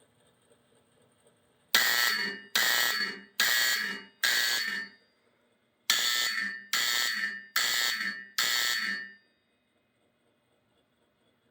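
Fire alarm signal driven by a 1965 Honeywell W247B coded control panel, sounding its master code 4-4: four strokes, a pause, then four more, each stroke fading briefly before the next.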